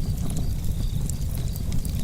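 Campfire burning: irregular sharp crackles and pops of burning wood over a steady low rumble of the flames.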